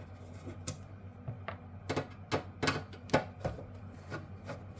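Screws being undone with a hand screwdriver: an irregular series of sharp clicks and ticks, the loudest about three seconds in.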